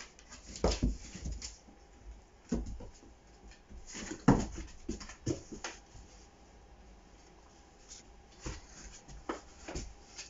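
A dog and a cat play-fighting on wooden floorboards: irregular scuffling, bumps and scrabbling paws, loudest about four seconds in.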